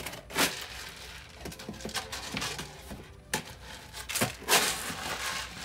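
Dry chicken feed being scooped by hand out of a plastic storage bin: a run of rustling, rattling scoops, several of them louder scrapes.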